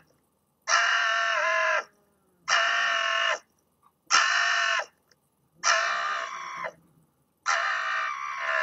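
Red fox giving loud, drawn-out screams with its mouth gaping, a threat call at a cat it is facing down. Five calls of about a second each, with short silent gaps between.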